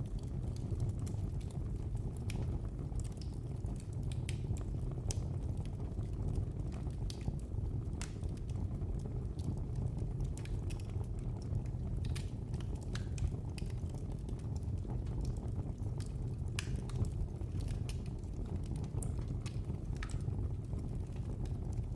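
Fire in a fireplace crackling: irregular sharp pops and snaps scattered over a steady low rumble.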